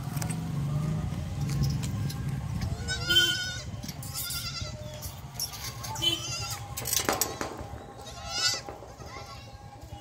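Kid goats bleating: four high, quavering bleats, spaced a second or two apart.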